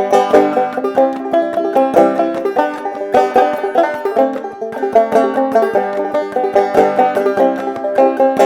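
Solo five-string banjo played clawhammer style: an instrumental break of the melody, brisk plucked notes over a steady repeated drone string.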